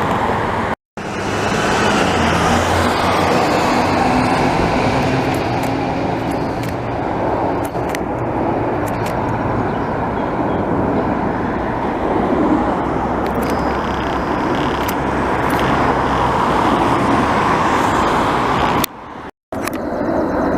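Loud steady roar of road traffic mixed with the engine noise of a passing jet airliner. It drops briefly to silence twice, about a second in and near the end.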